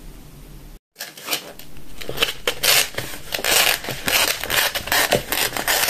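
Cup ramen packaging being unwrapped and peeled open by hand: a dense crinkling and crackling of the plastic film and lid that starts about a second in and grows louder.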